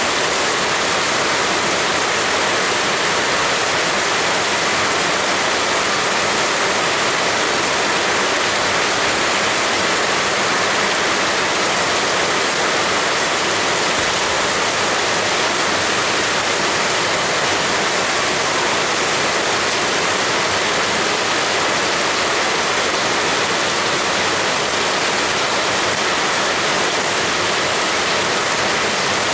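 Heavy rain pouring steadily, a dense, even hiss with no breaks or changes.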